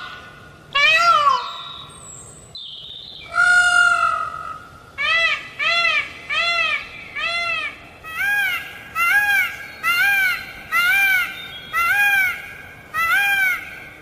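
A peacock calling loudly. There is one call about a second in and a longer one around three and a half seconds in, then a run of about a dozen short calls, each rising and then falling in pitch, coming less than a second apart.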